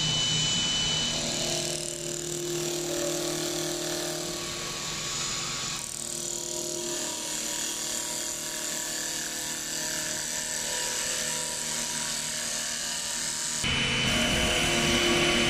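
CNC wood lathe running its automatic turning cycle: motors whining steadily while the cutter shaves the spinning wooden blank. The pitch and mix of the whine change abruptly a few times.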